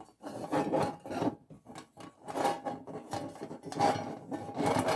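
Sheet-metal panels and wire base of a Sterno folding stove scraping and rubbing against each other as the stove is folded up, in a string of irregular strokes.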